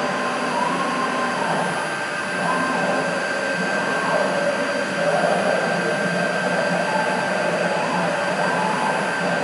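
CNC router running a Mach3 program, its axes moving through a toolpath: a steady high motor whine, with lower motor tones that shift in pitch as the axes change speed and direction.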